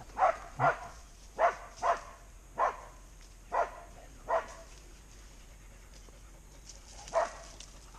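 A dog barking: about eight short single barks, seven close together at an uneven pace, then a pause and one last bark near the end.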